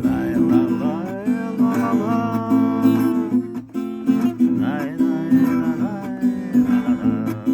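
Instrumental break of a song: strummed acoustic guitar chords with a sliding melody line played over them.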